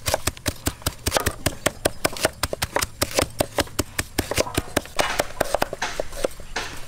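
Cleaver chopping fast on a round wooden chopping board, mincing small fish: a steady run of sharp knocks, several a second.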